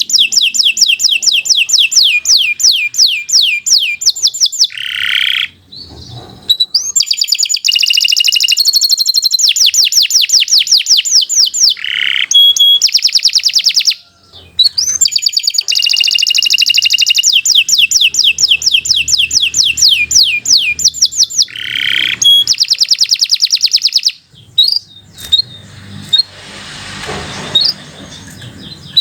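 Domestic canary singing long, rapid trills of repeated high notes, in phrases broken by short pauses. Near the end the song gives way to a few scattered chirps over a faint hiss.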